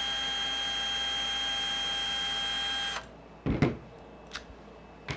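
Cordless Milwaukee drill driver backing out a screw from an RC truck chassis, its motor whining at a steady pitch, then stopping suddenly about three seconds in. A sharp knock follows, the loudest sound, then a couple of light clicks.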